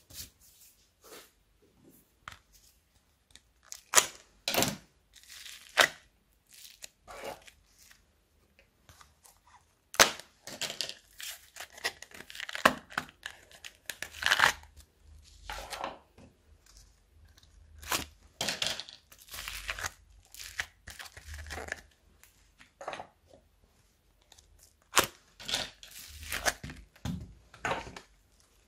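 Hands crumbling and tearing a crumbly, sand-like slime and handling small plastic tubs of slime. The sound is irregular crackly tearing and crunching in quick, uneven bursts, with a few sharp clicks.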